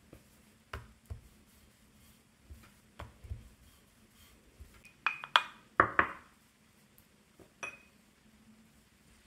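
Light knocks of a wooden rolling pin and hands on a wooden board, then a few sharp clinks of a pastry brush against a small ceramic ramekin, the loudest about five to six seconds in.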